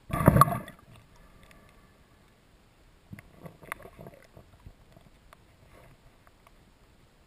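Muffled underwater sound heard through a camera housing: a short, loud rush of noise at the start, then faint scattered clicks and taps.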